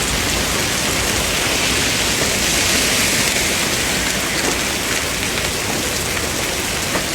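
Rain falling steadily during a thunderstorm: a dense, even hiss with no let-up.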